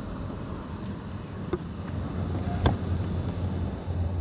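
A low, steady engine hum, with a single sharp knock about two and a half seconds in.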